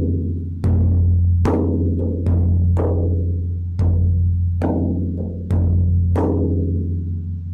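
Large hand-played frame drum struck in a slow, uneven beat, about nine strokes, each leaving a deep, booming ring that carries between the strikes. The last stroke rings on and dies away near the end.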